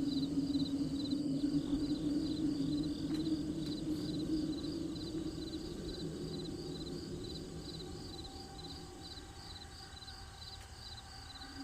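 Crickets chirping in a steady, regular rhythm of about two pulsed chirps a second. Beneath them a low steady drone fades away over the second half.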